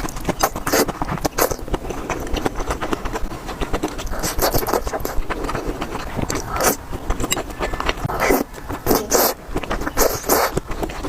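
Close-miked eating sounds: noodles slurped in repeated short bursts, with wet chewing and mouth clicks in between.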